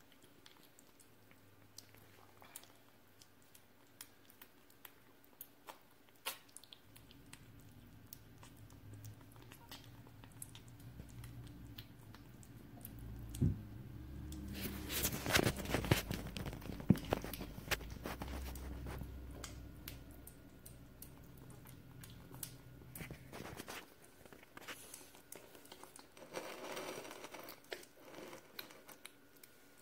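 A five-week-old kitten chewing and eating soft food from a china saucer, with many small wet clicks. About halfway through there is a louder stretch of knocks and low rumbling.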